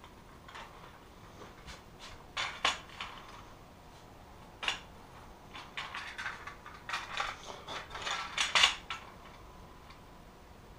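Small screws and a lazy Susan bearing handled on a plywood board: light metal and plastic clinks and rattles. A few single clicks come first, then a busier run of clinking in the second half.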